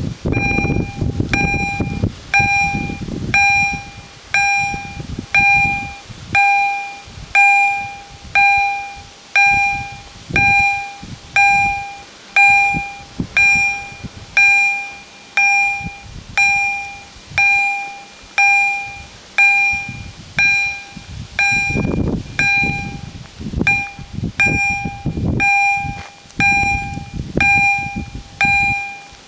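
Railway level-crossing warning bells ringing steadily, a struck bell tone repeating a little more than once every half second: the signal that a train is approaching and the barriers are closing.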